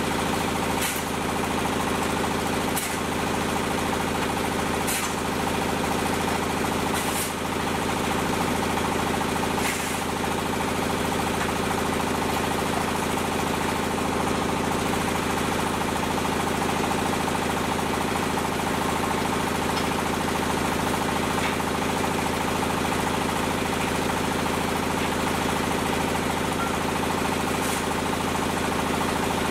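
Diesel engine running steadily, driving the hydraulic pump of a concrete hollow block machine. A few sharp knocks sound over it, spaced about two seconds apart through the first ten seconds and once more near the end.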